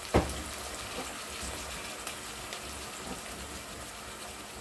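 Onions, green chillies and raw plantain pieces sizzling gently in oil in an aluminium pot on a low flame, a steady crackling hiss with scattered small pops. A single knock sounds just after the start.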